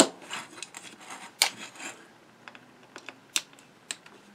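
Irregular sharp clicks and short scrapes of hand tools against the metal parts of a Singer 201-2 potted sewing machine motor being taken apart, with a few louder clicks near the start, about a second and a half in, and past three seconds.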